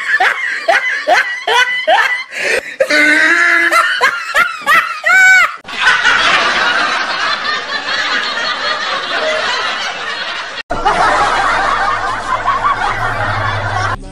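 Loud laughter: quick, repeated high-pitched bursts for about five seconds, then a denser stretch of many overlapping voices laughing, which cuts out briefly about ten and a half seconds in.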